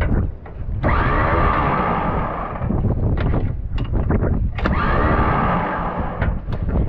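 Starter motor cranking a Case IH Steiger tractor's diesel engine in two bursts of about two seconds each, each opening with a rising whine; the engine does not catch. Short sharp clicks and crackles come between the bursts, from the starter being jumped with a wire.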